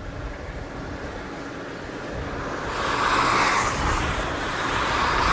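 Outdoor rushing noise that grows louder and swells twice, about three seconds in and again near the end.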